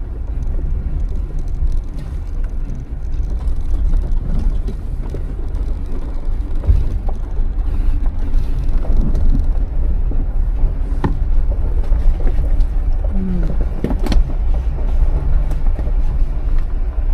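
Jeep engine and drivetrain running at crawling speed on a rocky trail, a steady low rumble, with a couple of sharp knocks in the second half.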